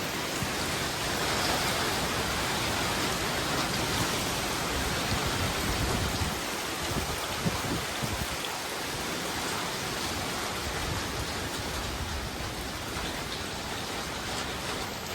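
Hurricane wind and heavy rain: a steady rushing hiss, with uneven low rumbles where gusts buffet the microphone.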